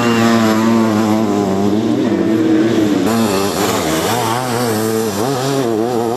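Sidecar motocross outfits' engines at race speed, the revs rising and falling again and again as they power through the turns. The sound changes abruptly about three seconds in.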